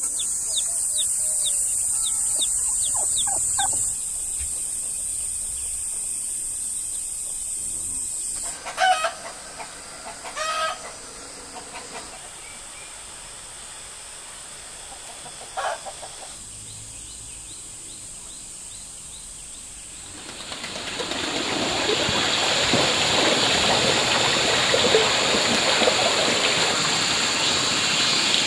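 Chickens calling, with a rooster crowing, in a few short calls spread over a steady high drone. About twenty seconds in, a broad rushing noise swells up and holds, drowning out the rest.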